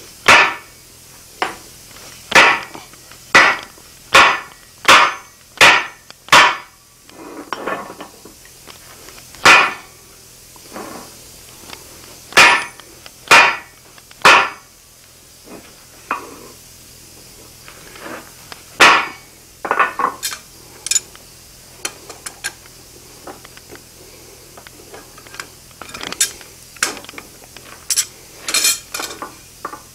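Small sledgehammer striking hot steel held in the hardy hole of a steel anvil block, forging the shoulder of a hardy tool: sharp metallic blows, a quick run of about seven about a second apart, then spaced-out single blows, and lighter, quicker strikes near the end.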